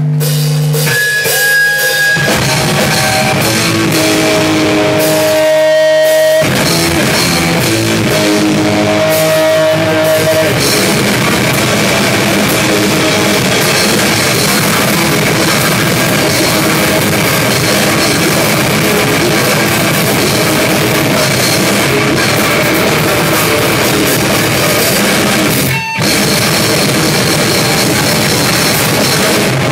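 Live heavy rock band playing loudly. Held, ringing electric guitar notes open it, then the full drum kit and distorted guitar come in about six seconds in, with a momentary break about four seconds before the end.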